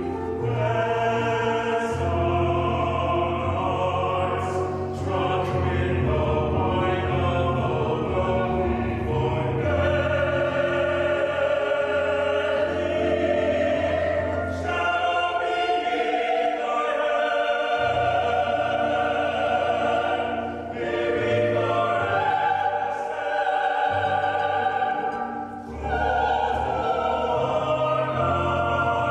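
Music: classical-style singing in long held notes over sustained accompaniment with a steady low bass.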